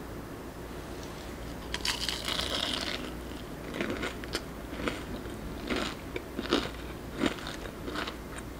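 Crispy fried batter being bitten with a loud crunch about two seconds in, followed by a run of short crunchy bites and chewing.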